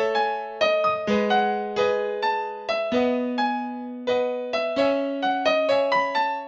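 Background music: an electric piano melody of single struck notes, each fading away, about two notes a second, over low notes that change every second or two.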